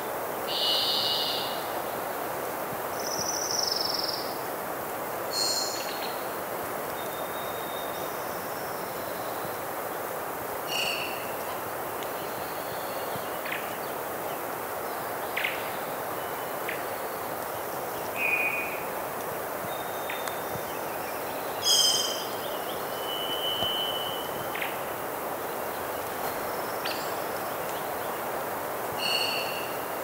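Steady rush of a distant river and wind in spring woodland, with a hermit thrush's clear, fluty song phrases every few seconds at changing pitches and other birds calling now and then.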